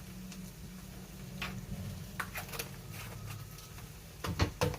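Corned beef hash frying quietly in a cast iron skillet while a utensil ticks and scrapes against the pan, with a quick run of louder knocks near the end.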